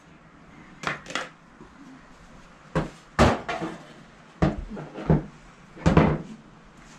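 A series of sharp knocks and clatters of things being handled on a wooden table: dishes, a pan and utensils set down and moved, about seven in all, the loudest around the middle and near the end.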